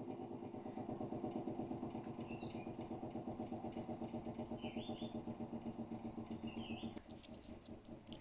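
A motor running steadily with a fast, even low throb, dropping in level about seven seconds in; short high chirps sound a few times over it, with a few light clicks near the end.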